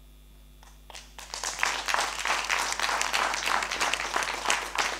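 Audience applauding, a dense patter of many hands clapping that starts about a second in after a brief hush.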